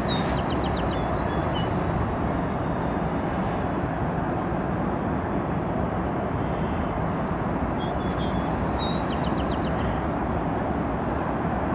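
Steady low rumble of a diesel locomotive moving slowly, with small birds chirping briefly near the start and again about eight seconds in.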